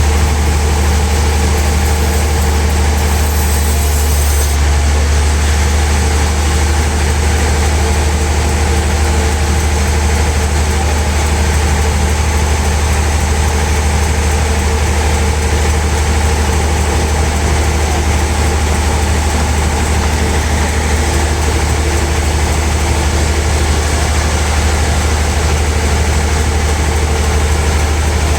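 Sawmill machinery running steadily: a constant low hum with steady tones above it, unbroken throughout.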